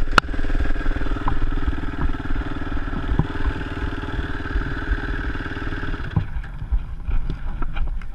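Yamaha WR450F dirt bike engine running steadily as the bike rides a rough dirt track, with wind rumble and clatter over the terrain. About six seconds in the engine note drops away, leaving scattered knocks and clatter.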